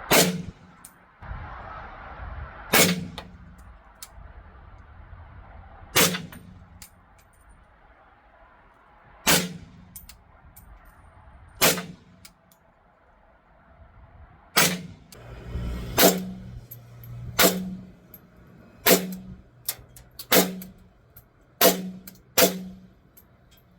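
Suppressed 7.62x39 rifle shots through a titanium Banish 46 suppressor, about a dozen single shots: five slow ones about three seconds apart, then seven quicker ones about a second and a half apart.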